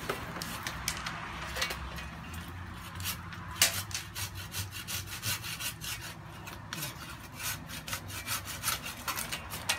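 Manual pole pruning saw cutting through an olive branch with repeated back-and-forth strokes, faster and more regular in the second half. One louder click stands out about three and a half seconds in.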